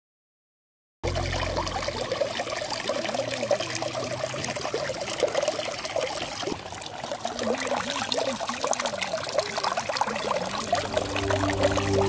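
Water trickling and splashing from a small rock waterfall into a shallow pool, with little gurgles. It starts abruptly about a second in.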